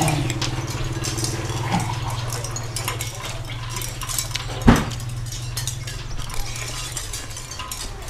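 Eating at a table: a spoon and fork clinking and scraping on a plate, over a steady low hum. There is one sharp knock about halfway through.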